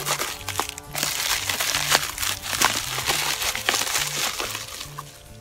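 Plastic packaging crinkling and tearing as it is opened by hand, a dense run of crackles that eases off near the end.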